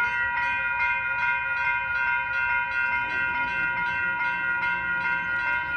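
Railroad crossing's electronic warning bell ringing rapidly and steadily, about three strikes a second: the crossing signal is activated for an approaching train.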